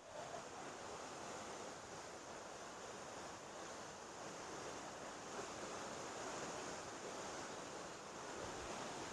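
River rapids rushing: a steady, even roar of white water.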